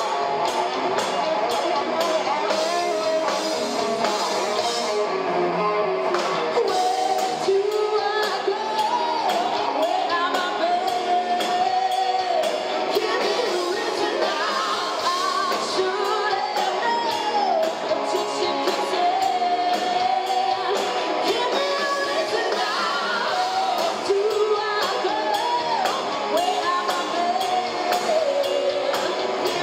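Live rock band playing: a woman sings over distorted electric guitars and a drum kit keeping a steady beat.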